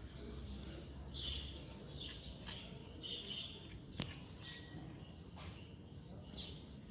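Faint, short high-pitched chirps recurring about once a second, with two sharp clicks in the middle.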